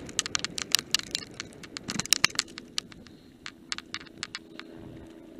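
Mountain bike rattling over a rough gravel track at speed: dense, irregular sharp clicks and knocks from stones, chain and frame over a low rumble of tyres and wind.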